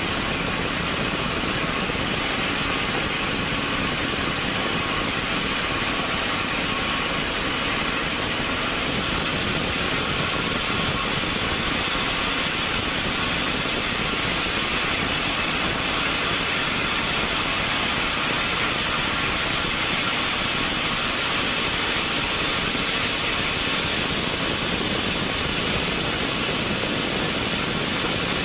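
Woodworking machinery running steadily, a constant dense mechanical noise with a strong high hiss that does not break or change.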